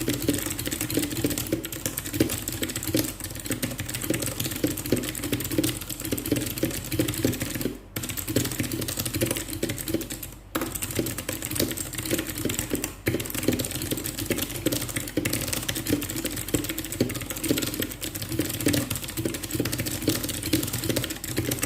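Fast continuous typing on an RK61 mechanical keyboard with clicky blue switches, a rapid stream of keystroke clicks with a few brief pauses between bursts.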